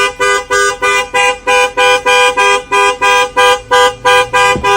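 A horn honking in rapid, even blasts, about three a second, without a break.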